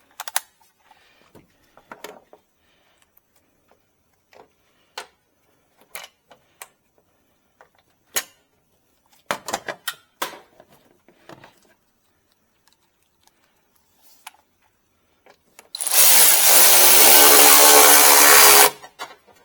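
Scattered clicks and taps of trim pieces and tools being handled, then a power drill runs steadily for about three seconds near the end, driving a screw through an extension.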